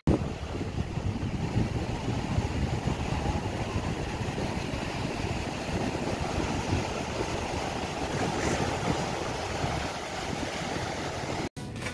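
Waves breaking and washing up a sandy beach, heard as a steady rushing noise, with wind rumbling on the microphone.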